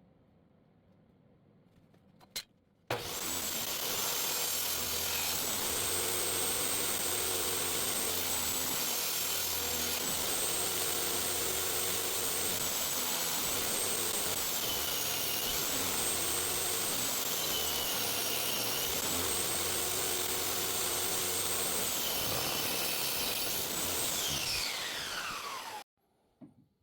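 Electric power tool switched on with a click and running for about twenty seconds, its high motor whine dipping several times as it is loaded in wood and recovering, then winding down in pitch near the end as it is switched off.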